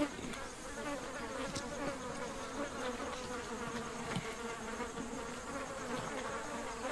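Flies buzzing around a water buffalo carcass: a steady, wavering drone of many wings, with a few faint knocks.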